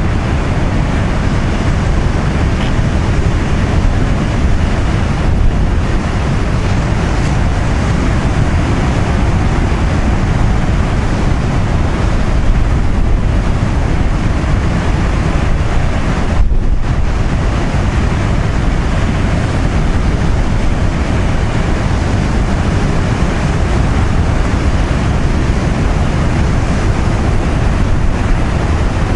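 Strong wind buffeting the microphone with a steady low rumble, over heavy storm surf breaking on a rocky shore.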